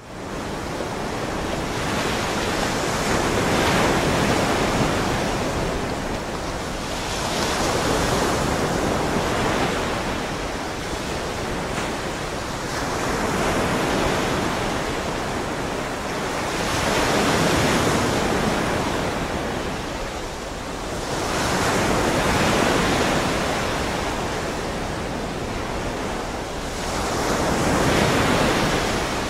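Rough open-ocean waves surging and breaking, a steady wash that swells louder in slow surges about every four to five seconds.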